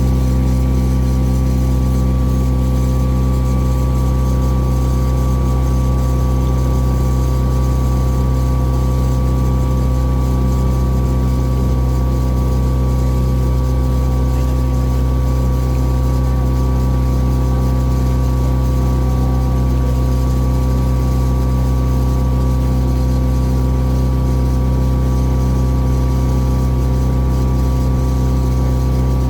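A lake-cruise tour boat's engine running steadily, heard on board as a constant, even drone with a fixed hum.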